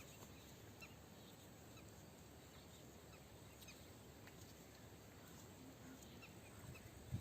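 Near silence: faint outdoor background hiss with a few faint, short high chirps scattered through.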